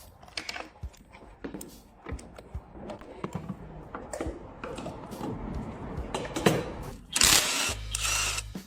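Hand work on a motorcycle in a workshop: a string of small clicks and knocks from tools and parts being handled, then a loud hiss lasting about a second and a half near the end.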